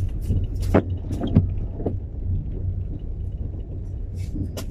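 Steady low rumble of a car's engine and road noise heard from inside the moving car's cabin, with a few short clicks about one and one and a half seconds in.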